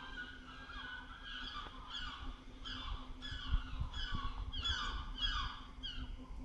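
A bird calling over and over: a run of short, harsh calls, each sliding down in pitch, about two a second, over a low steady hum.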